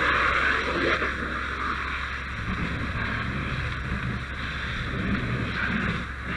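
Fire hose handline nozzle flowing water into a burning shed: a steady rushing hiss.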